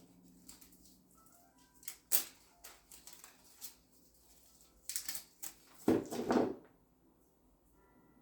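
Small gift items being handled and set into a gift basket: scattered light clicks and rustles, with a longer, louder rustle about six seconds in.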